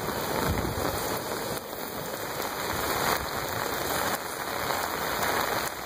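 Heavy rain falling, a steady hiss of water with no let-up.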